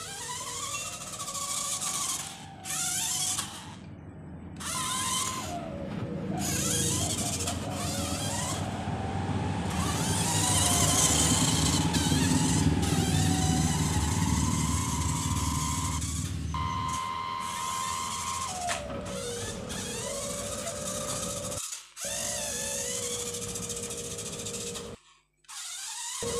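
Small electric drive motor of a toy RC off-road car whining as it drives across a tiled floor, its pitch rising and falling with the throttle. A low rumble builds in the middle, when the car runs hardest.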